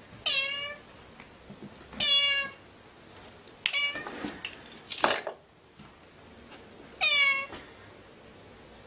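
Ginger-and-white domestic cat meowing: several short meows, each falling in pitch, near the start, about two seconds in and again about seven seconds in. Around the middle comes a noisier, rougher sound.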